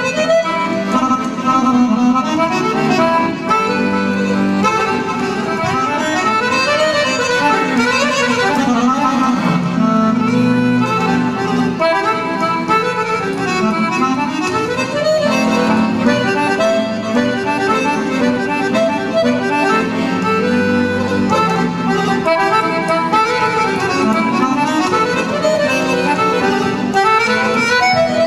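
Weltmeister piano accordion played live: fast melodic runs climbing and falling over sustained bass notes.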